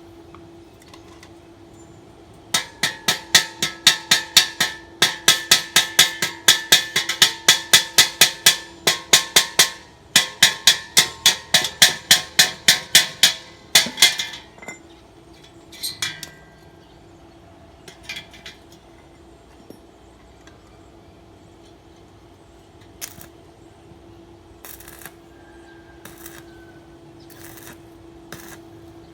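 Hammer striking metal in a fast, even rhythm, about three to four ringing blows a second, for roughly twelve seconds with a short break in the middle. After that come a few scattered knocks over a steady low hum.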